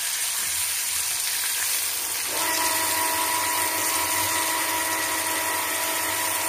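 Steady electrical whine from a kitchen appliance, several pitches sounding at once; its lower tones are missing at first and come back about two seconds in.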